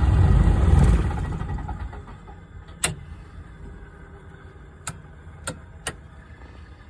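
Zlin 142C's Walter M337 inverted six-cylinder engine being shut down. It runs for about a second, then winds down and dies away as the propeller stops, heard from inside the cockpit. Four sharp clicks follow, one a little before halfway and three close together near the end.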